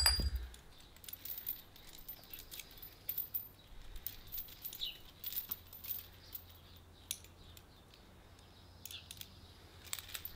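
Steel chain links clinking lightly in scattered, irregular clicks as the chain on a homemade stone kettlebell is handled and its length readjusted.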